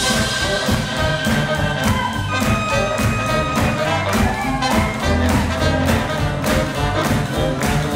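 Swing jazz band playing, with horns over a steady beat and a moving bass line.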